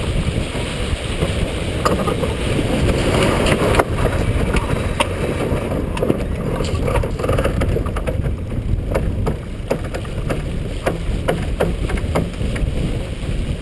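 Wind buffeting the microphone and water rushing past the hull of a J/124 sailboat under sail. Through the second half comes a run of quick, sharp clicks from a sheet winch ratcheting as the crew tail and trim the sheet.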